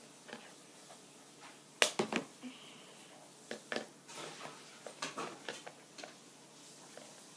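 Small toy pieces and plastic packaging being handled and opened on a table: scattered light clicks and rustles, with a sharp clatter of clicks about two seconds in.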